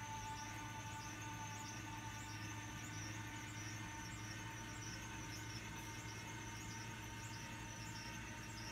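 Electric hospital bed's lift motor running with a steady whine as the bed is raised.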